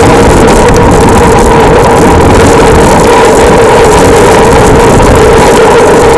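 A vehicle running steadily: a loud, unbroken rumble and hiss with a constant hum over it.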